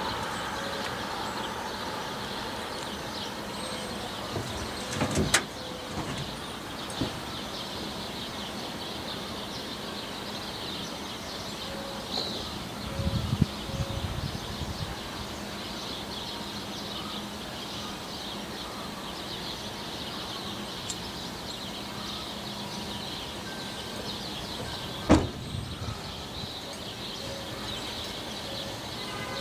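Loaded coal hopper cars of a freight train rolling past, a steady rolling noise of wheels on rail. A few sharp metallic clanks stand out, the loudest about five seconds in and again near the end.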